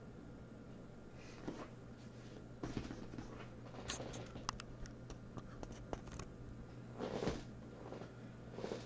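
Close handling noises: a scattered series of rustles, scrapes and sharp clicks, loudest about seven seconds in, over a low steady hum.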